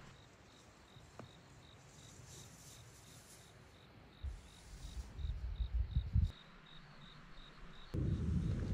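Insect chirping steadily, faint high pulses at about three a second, with irregular low rumbling about halfway through. Near the end a steady low vehicle rumble starts abruptly.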